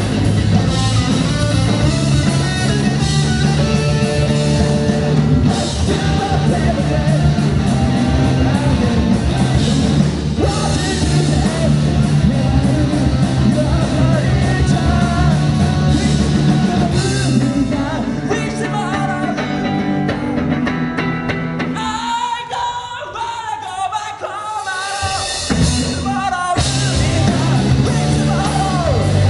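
Live rock band playing a song: electric guitars and drum kit with singing. About 22 seconds in, the low end drops away and the band thins to a lighter passage for a few seconds, then comes back in at full strength.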